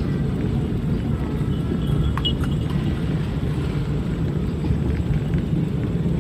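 Steady engine and road rumble of a public minibus (angkot), heard from inside the cab while it drives in traffic, with a brief click about two seconds in.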